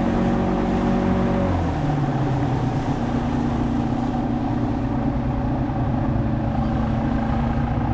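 Fishing boat's motor running under way with a steady rushing noise; the engine note drops about one and a half seconds in, then holds steady.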